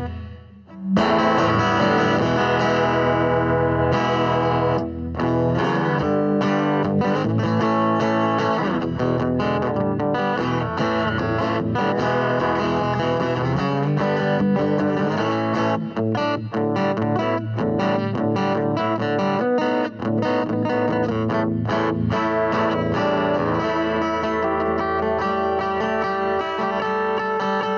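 Electric guitar music played through distortion effects, with a brief drop in level about half a second in before the playing carries on steadily.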